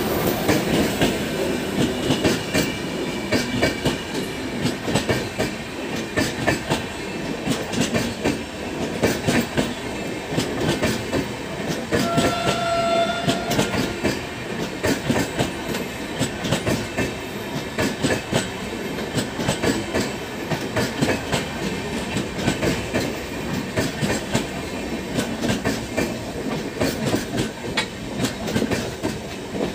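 LHB passenger coaches of an express train running past, their wheels clattering rhythmically over the rail joints. A brief horn-like tone sounds about twelve seconds in.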